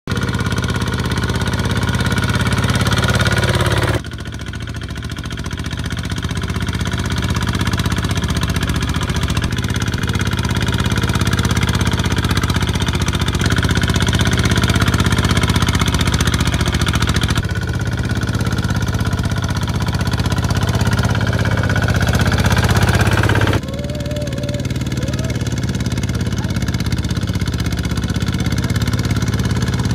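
Single-cylinder diesel engines of two-wheel walking tractors running steadily while hauling trailers of rice sacks through deep mud. The engine note changes abruptly about four, seventeen and twenty-three seconds in.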